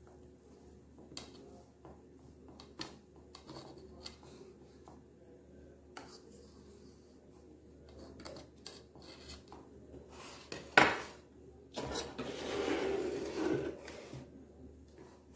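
Knife cutting through soft coconut burfi on a steel plate, the blade giving light ticks and scrapes against the metal. About 11 seconds in comes a sharp clack, the loudest moment, then about two seconds of scraping as a plastic plate is set down on the wooden table.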